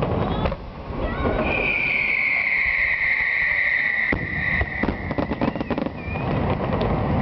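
Fireworks display: a long whistle falling slightly in pitch for about three seconds, then from about four seconds in a rapid string of bangs and crackles from shell bursts.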